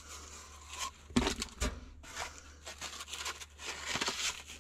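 Old paper and cardboard packaging from a carburetor kit crinkling and rustling as it is handled, with a couple of light knocks a little over a second in.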